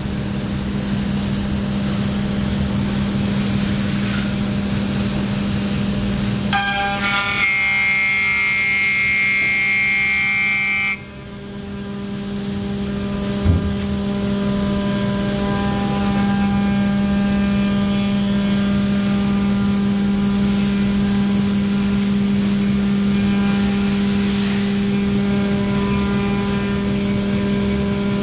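5-axis CNC milling machine running with a steady hum and high whine. About seven seconds in, a cluster of pitched tones steps in and holds. About eleven seconds in the sound drops suddenly and builds back over a few seconds, and a single knock follows shortly after.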